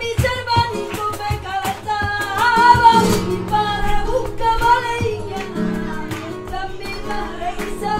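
Live flamenco: a female flamenco singer holds a wavering, ornamented vocal line with no clear words, over nylon-string flamenco guitar and percussive cajón strokes. The voice is loudest about three seconds in.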